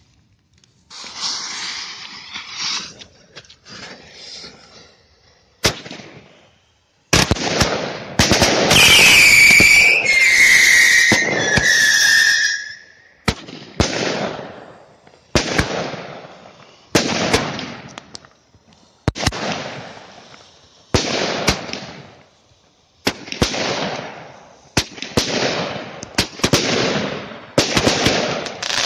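Small category F2 consumer fireworks going off: a hissing spray of sparks first, then a loud stretch with three whistles falling in pitch, then a battery firing single shots about every two seconds, each a sharp bang that fades away.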